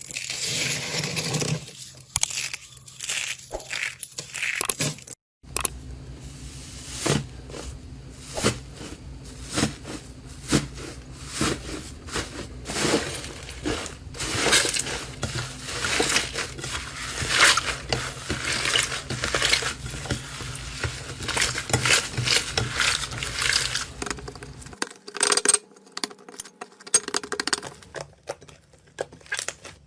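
Slime being squeezed, poked and stretched by hand: a dense run of sticky crackles, clicks and squishes. It breaks off briefly about five seconds in and again near the end, where one clip gives way to the next.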